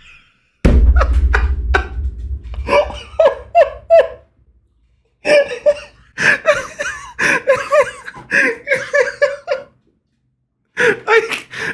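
A man laughing hard in bursts. A deep rumble sits under the first loud burst about a second in, and there are short pauses about four seconds in and near the end.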